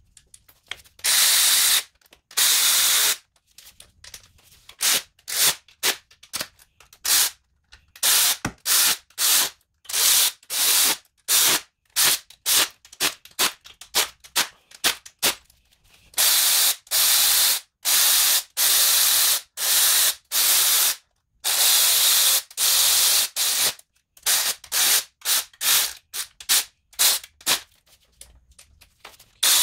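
Cordless electric ratchet running down the camshaft bearing-cap bolts on a Toyota 2AZ cylinder head, whirring in many stop-start bursts, some brief and some a second or more long.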